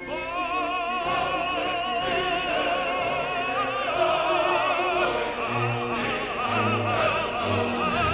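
Background music: operatic singing with a wavering vibrato over instrumental accompaniment.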